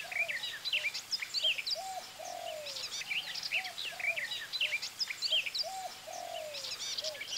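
Many forest birds singing at once: dense overlapping high chirps and whistles, with a lower arched call repeated in pairs every second or two.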